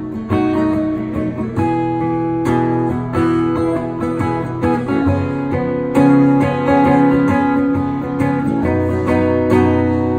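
Martin steel-string acoustic guitar strumming chords, struck roughly once a second and ringing on between strokes, with no voice over it.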